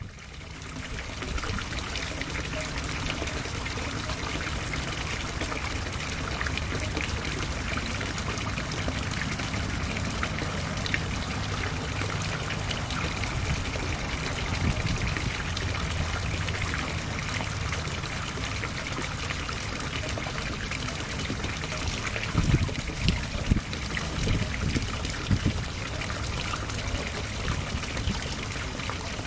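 Water trickling and splashing steadily into a backyard garden pond, with a few low thumps in the last third.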